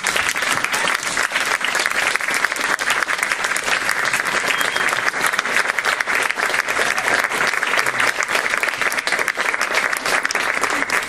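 Audience applauding, many hands clapping in a steady, even stream.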